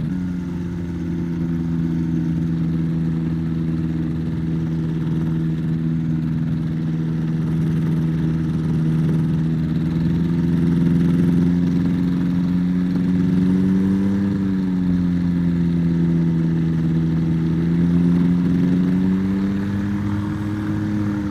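Rotax 582 two-stroke twin engine of a Spectrum Beaver RX 550 ultralight running at low taxi power, turning its two-blade propeller. The pitch holds steady, then rises and falls briefly about two-thirds of the way through and rises again near the end as the throttle is moved.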